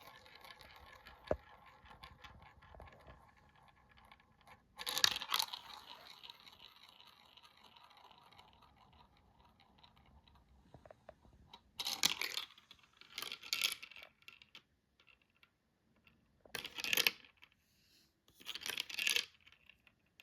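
Marbles rolling down a small marble run track: a steady rolling hum, broken five times by short clattering bursts as marbles drop and knock against the track.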